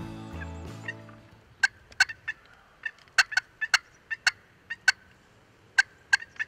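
Background music fading out in the first second, then a quick, irregular run of short, sharp turkey calls, about fifteen notes in five seconds.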